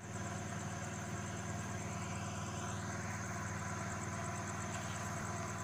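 Steady low mechanical hum with a fast, even pulse, like an engine idling.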